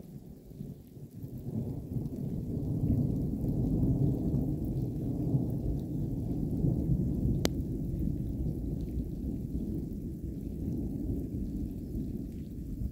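Distant thunder from a storm: a long low rolling rumble that builds over the first couple of seconds and carries on unevenly. A single sharp click comes about halfway through.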